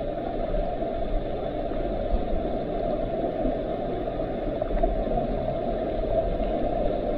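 Stream water rushing and churning into a pool, heard through an underwater camera: a steady, muffled rumble.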